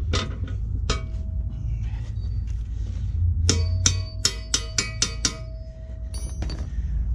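Hammer blows on steel, driving a home-built backhoe quick hitch into place: sharp ringing metallic strikes, two near the start, a quick run of about seven in the middle and one more near the end, over a steady low rumble.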